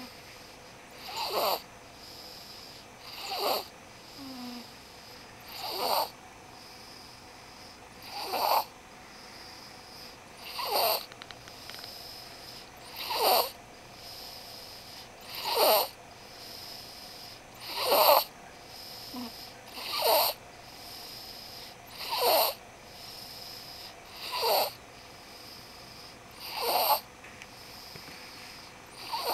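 A sleeping baby snoring in a steady rhythm, one short snore about every two and a half seconds.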